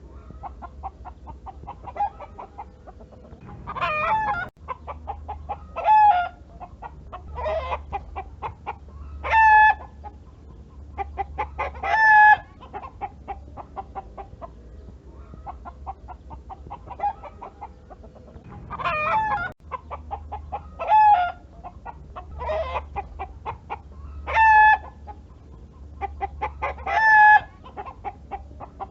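Chickens clucking in quick runs, broken every couple of seconds by a louder, drawn-out squawking call. The same sequence of calls repeats about halfway through.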